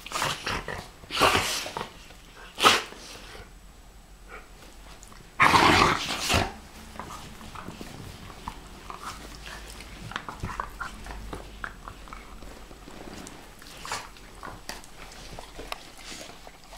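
A Pharaoh Hound and a Rhodesian Ridgeback play-fighting: four short, loud bursts of noise from the tussle in the first six or seven seconds, the longest lasting about a second, then only quiet rustling and mouthing as they settle.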